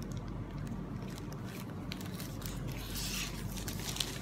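Faint rustling and small clicks of paper and plastic packaging being handled, louder about three seconds in, over a steady low hum.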